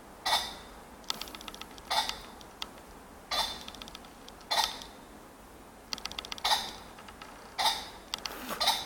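Ring-necked pheasant calling: short, harsh calls repeated roughly once a second, with brief runs of rapid clicking between some of them.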